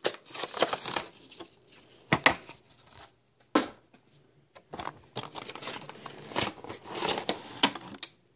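Clear plastic blister packaging crinkling and crackling as a toy is worked out of it by hand, with a few sharp clicks of the plastic.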